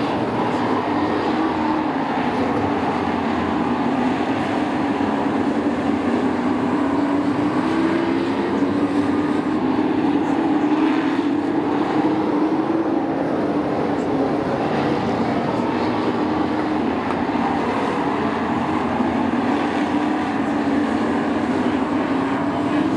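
A pack of short-track race trucks running laps on an oval, their engines a continuous drone that rises and falls in pitch and swells around the middle as the field passes.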